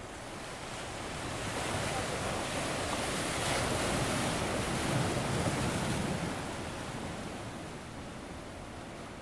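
Sea surf: a wash of waves swelling to a peak around the middle, then slowly falling away.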